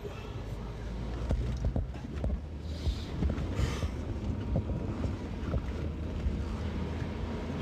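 Steady low engine and road rumble of a taxi driving, heard inside the cab, with a few faint knocks and rustles.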